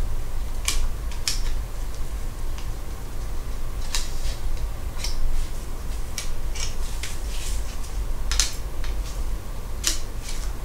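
Sharp clicks and snaps, about a dozen scattered irregularly, as a metal cover over the RAM inside a Lenovo IdeaPad S740 laptop is pressed and snapped back into place by gloved fingers. A low steady hum runs underneath.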